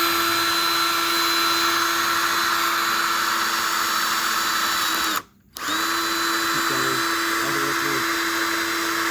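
Cordless drill running at a steady speed, boring into an iPhone's casing; it stops for about half a second a little past halfway, then starts again and runs on.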